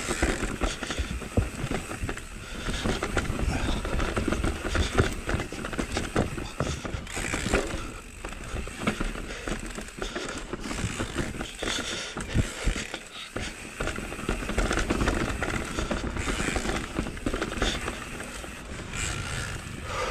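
Mondraker Level R electric mountain bike riding over a trail of stone slabs: tyres and frame rattling and clattering with many sharp knocks as the wheels go over the stones.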